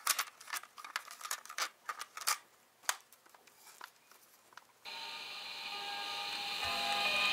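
Irregular crackling and crinkling clicks at uneven spacing. About five seconds in, a steady hiss with faint tones cuts in suddenly and slowly grows louder.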